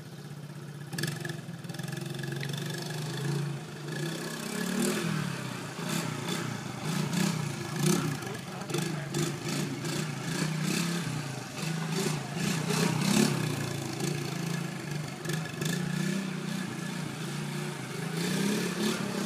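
Honda ATC 70 three-wheeler's small four-stroke single-cylinder engine running while it is ridden, revving up and dropping back over and over.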